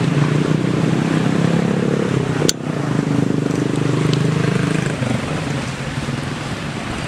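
A steady low engine hum, like a motor vehicle running, with a sharp click and a brief drop about two and a half seconds in.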